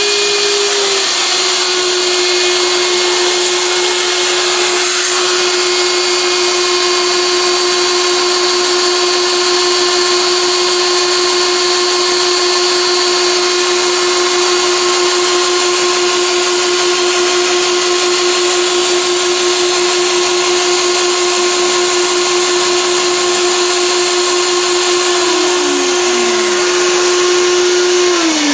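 Shapeoko CNC router's Carbide 3D spindle running at a steady high whine while milling a black acrylic sheet, its pitch dipping slightly about a second in. Right at the end the whine starts to fall in pitch as the spindle winds down at the end of the job.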